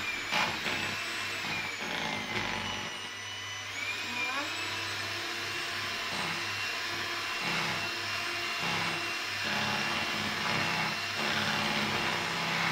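Electric hand mixer running steadily on its turbo setting, its beaters whisking cake batter in a bowl, with a continuous motor hum and high whine.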